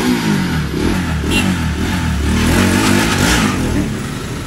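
A vehicle engine revving, its pitch rising and falling several times over a steady low rumble.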